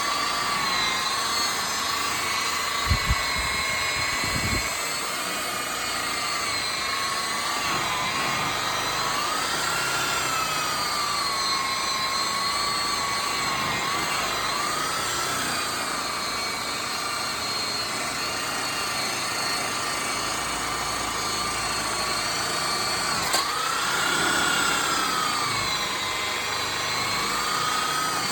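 Handheld electric power tool polishing a car bumper, running with a steady whine whose pitch sags and recovers as it is pressed against the work. A few sharp knocks come about three and four seconds in, and a click near the end.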